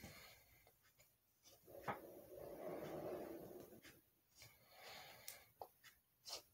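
A latex balloon being blown up by mouth: long breaths pushed into the balloon, with short sharp intakes of breath through the nose between them.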